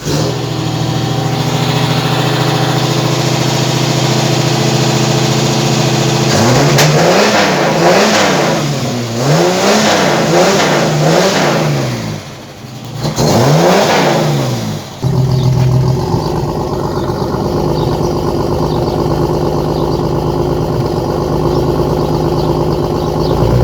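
Ford Falcon engine running through a newly fitted half exhaust system with a 'turbo roncador' muffler. It idles steadily, then is revved up and down several times in quick succession, and settles back to a steady idle for the second half.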